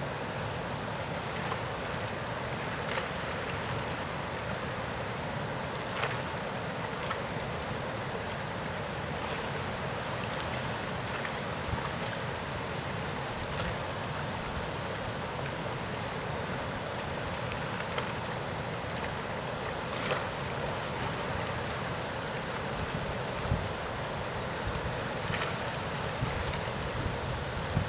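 Steady outdoor background noise, an even hiss, with a few faint clicks scattered through it.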